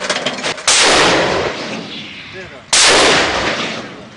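Heavy weapons firing: a few short cracks, then two sudden loud blasts about two seconds apart, each trailing off in a long rushing tail.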